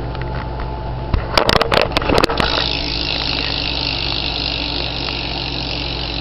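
BMX rear hub freewheeling as the back wheel is spun: a few sharp knocks about a second in as the wheel is set going, then the hub's ratchet buzzing steadily as it coasts, pretty loud.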